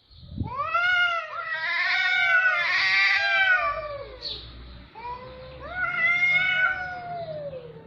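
Cats caterwauling: long wavering yowls that rise and fall in pitch. One runs through the first half, and another starts about five seconds in.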